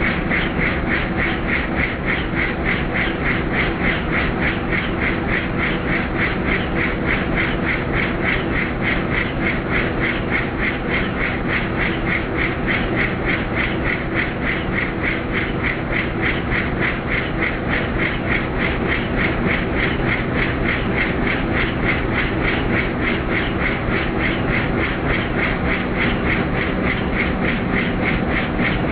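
Helicopter rotor and engine heard from inside the cabin: a steady, rapid pulsing chop over a continuous engine hum.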